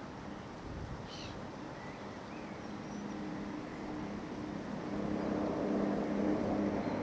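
A motor engine humming steadily over the outdoor background, growing louder from about halfway through as it comes closer.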